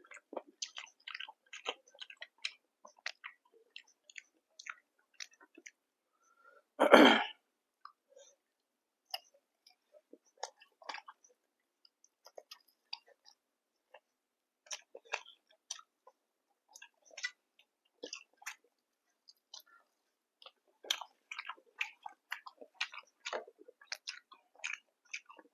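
Close-miked chewing: wet mouth clicks and smacks in irregular clusters as food is eaten. About seven seconds in comes one short, much louder throat or mouth noise.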